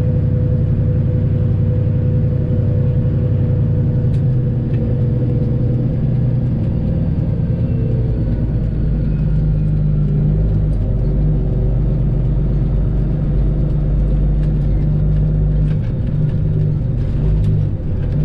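Detroit Diesel 12.7-litre inline-six engine of a Freightliner Classic XL semi truck running, heard from the cab as a steady rumble; its note shifts deeper about halfway through.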